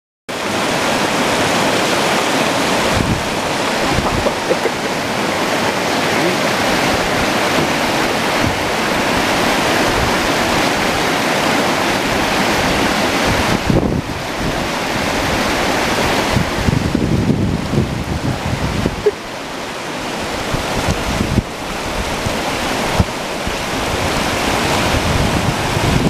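Rushing water of the Firehole River, with wind buffeting the microphone in uneven low thumps.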